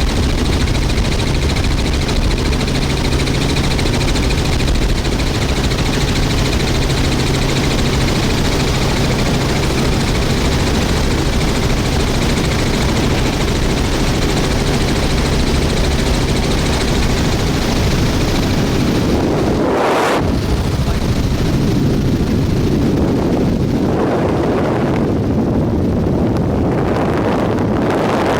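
Helicopter engine and rotor running steadily and loud, as heard from on board in flight. About two-thirds of the way through, the high hiss fades, there is a brief whoosh, and an uneven rushing like wind on the microphone takes over.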